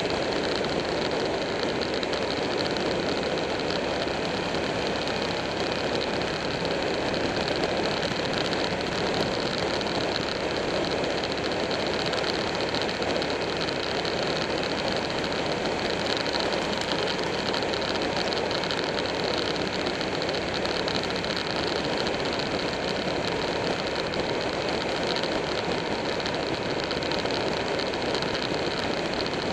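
Buell 1125R motorcycle's V-twin engine running steadily at cruising speed, mixed with constant wind and road noise on a bike-mounted camera.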